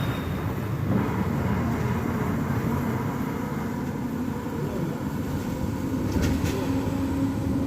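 A moving bus running steadily, its engine and road rumble heard from inside the cabin, with a couple of short sharp clicks or rattles a little past six seconds in.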